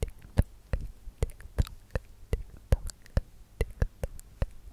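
Close-miked ASMR trigger sounds: a run of sharp, dry clicks and taps right at the microphone, about three a second and not quite evenly spaced.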